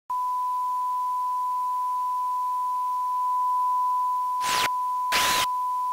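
Steady 1 kHz broadcast test tone sounding with a TV test card, broken near the end by two short bursts of hissing noise.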